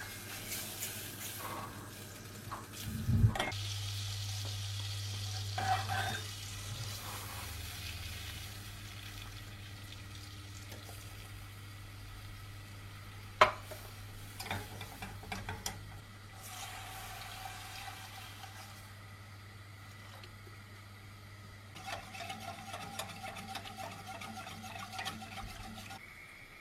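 Béchamel being cooked in a saucepan: a utensil stirring in the pan with a light sizzle. Sharp clinks of utensil on pan come about 3 seconds in and, loudest, about halfway through. A steady low hum runs underneath.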